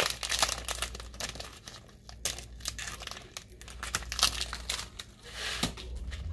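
Adhesive vinyl being weeded from its backing sheet with a craft knife: irregular crackling and crinkling as the waste vinyl is lifted and peeled, over a low steady hum.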